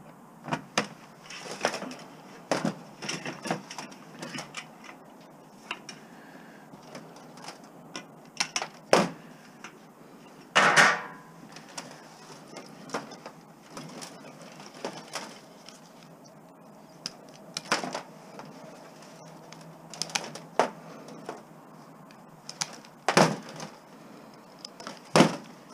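Irregular clicks, clinks and knocks of hand tools and metal scrap parts being handled while electronics are stripped for scrap, with a longer, louder clatter about eleven seconds in and sharp knocks near the end.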